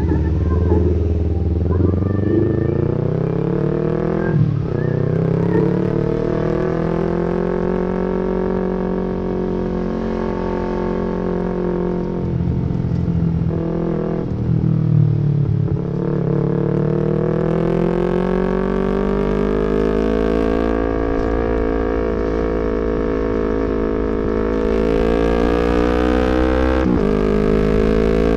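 Yamaha MT-25's parallel-twin engine under way, rising in pitch as it accelerates. The pitch drops briefly about four seconds in, twice around twelve to sixteen seconds, and again near the end, each time climbing again: throttle lifts and gear changes.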